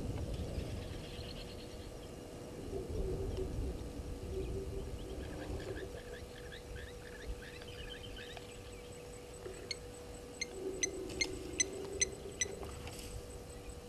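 Wild birds calling: a run of quick chirps midway, then about six sharp, evenly spaced notes near the end, over a faint steady hum.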